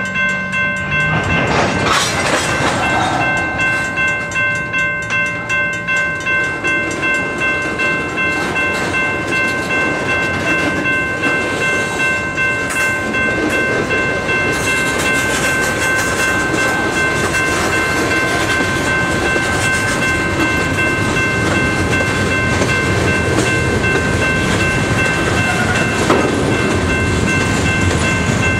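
Freight train cars rolling past, wheels clacking over rail joints with an even rhythm, and several steady high ringing tones over the rumble. One sharper clank comes near the end.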